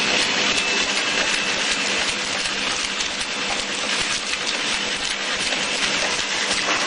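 High-speed straw packing machine running: a steady, dense clatter of rapid ticks over a constant low hum and a thin high whine.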